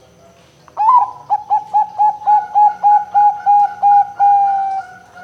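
Zebra dove (perkutut) cooing: starting about a second in, a quick run of about a dozen short coos, roughly four a second, ending in one longer drawn-out coo that sinks a little in pitch.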